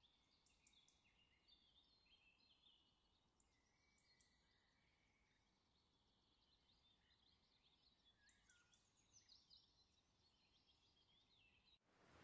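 Near silence, with faint, scattered high chirps; a steady hiss cuts in at the very end.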